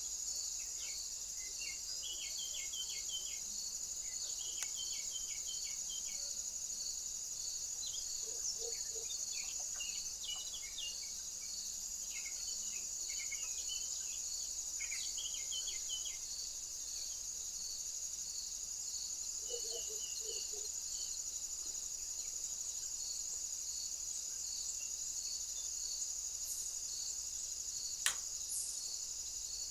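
Crickets chirping: a steady high insect chorus with a regular pulsed chirp running underneath. Small birds at the feeder give short high calls through the first half and again briefly later, and there is one sharp click near the end.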